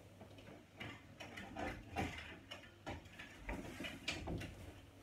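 Clothes being handled and pulled out of a wardrobe: faint rustling of fabric with a string of light clicks and knocks.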